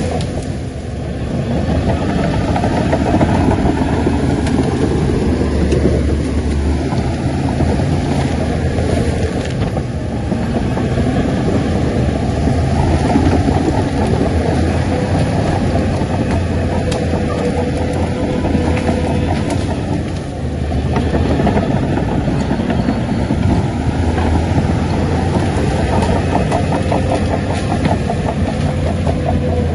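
Heavy diesel engine of earthmoving machinery running hard for a long stretch, its loudness easing briefly and building again a few times.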